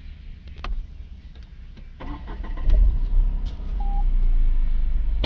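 Tata Tiago's 1.2-litre three-cylinder Revotron petrol engine being started with the key: a few clicks, brief cranking about two seconds in, then it catches and settles into a steady low idle. A short beep sounds just after it catches.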